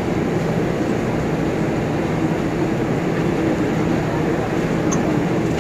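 R142A subway train starting to pull out of the station, heard from inside the car: a steady mix of traction motor and wheel noise with a faint hum.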